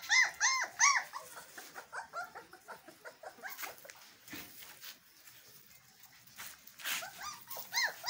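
Bakarwal puppies yelping and whimpering in short, high, rising-and-falling cries: three loud yelps in the first second, softer whines through the middle, and another run of loud yelps near the end.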